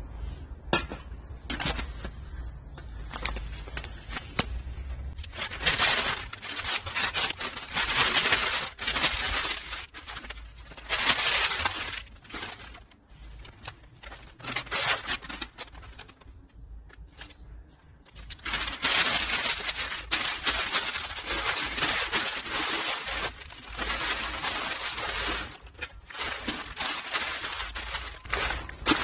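Dry newspaper being crumpled and crinkled by hand in long rustling bouts, with a quieter lull about halfway through. The paper is being balled up as tinder for a charcoal chimney starter.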